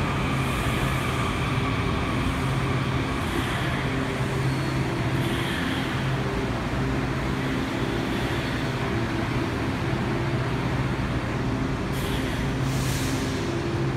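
Washington Metro Red Line train running steadily: a continuous rumble with a low, steady hum.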